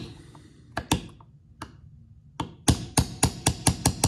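Small hammer tapping a steel pin punch to drive out the pins that mount a power-folding mirror motor to its frame: a few separate sharp taps, then a quick run of taps, about six a second, in the last second and a half.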